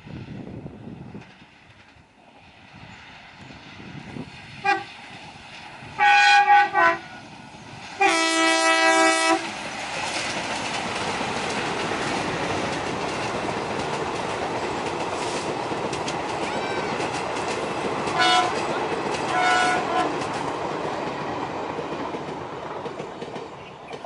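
WDG3A ALCO diesel locomotive sounding its multi-tone horn: a short toot, a quick double blast and a long blast. The train then runs past with the engine and coaches clattering over the rail joints, two more short horn toots partway through, and the sound fading near the end.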